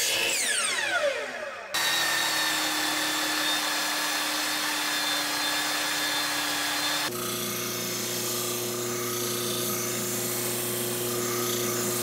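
Miter saw blade spinning down after a cut, its whine falling in pitch. It cuts abruptly to a narrow belt sander running steadily as plywood is sanded, and about seven seconds in to a disc sander's steady hum as the wood is shaped against the disc.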